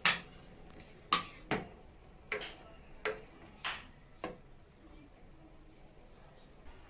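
Light knocks and clinks of kitchen utensils against a cooking pot, about seven over four seconds and then stopping, as jaggery is added to the simmering herbal tonic.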